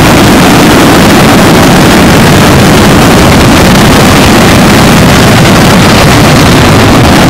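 The whole stock of a fireworks show detonating at once, set off together by a computer error: one continuous, dense blast of explosions with no separate bangs, so loud that the recording is overloaded throughout.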